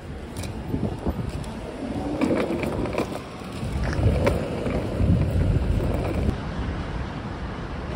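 Wheels of a hard-shell suitcase rolling over rough concrete pavement: a steady low rumble with a few sharp clicks.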